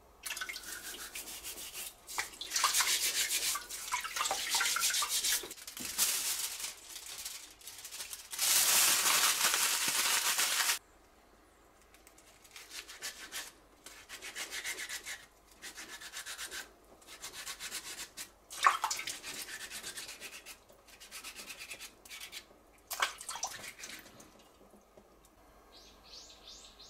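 Raw taro corms being scrubbed and peeled by hand over a steel sink: rough rubbing and scraping strokes, with a steady loud rush for about two seconds a third of the way in. Later come shorter separate scrapes of the peeling, with one sharp tap about two-thirds of the way through.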